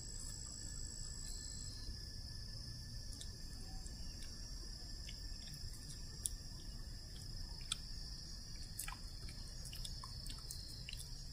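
Steady high-pitched drone of insects (crickets or cicadas), with a few faint short clicks scattered through the second half.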